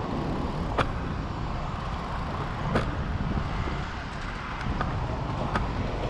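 Steady low rumble of street traffic, with four short sharp clicks spread through it.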